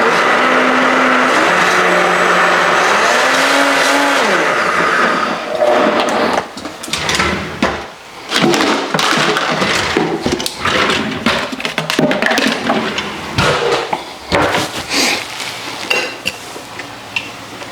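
Kitchen blender running on a salsa: a steady motor whine for about five seconds, its pitch wavering, then turning choppy and uneven, with sharp knocks and short drops in loudness, as the motor is run in fits and starts.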